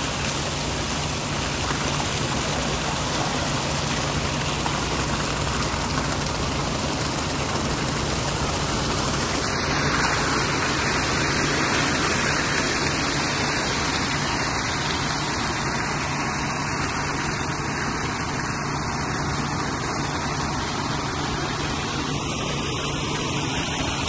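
Ready-mix concrete truck's diesel engine running steadily at a pour, with the rushing hiss of wet concrete sliding down the chute into the form; the flow swells a little about ten seconds in.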